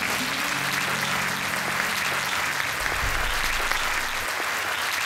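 A large crowd applauding, a steady dense clatter of many hands clapping. A low held note from the music dies away over the first two seconds.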